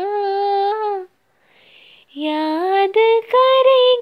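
A young female voice singing a Hindi film song unaccompanied: a held note for about a second, then a short breath, then the melody resumes on a rising pitch and carries on to the end.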